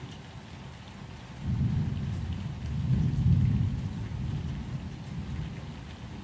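Steady rain with a low rumble of thunder that comes in sharply about a second and a half in, swells, and slowly dies away.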